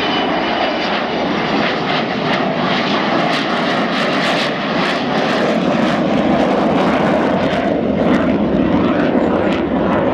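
Avro Vulcan bomber's four Rolls-Royce Olympus turbojets, loud and continuous as the delta-wing jet passes low and climbs away. A high whine fades in the first second, then the jet roar crackles through the rest.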